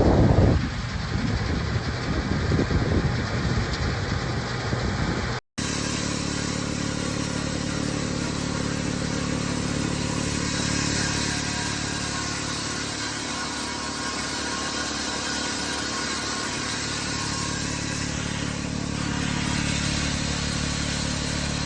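Wind buffeting the microphone over a low rumble, then, after a sudden cut about five seconds in, a vehicle engine running at a steady speed with a constant drone.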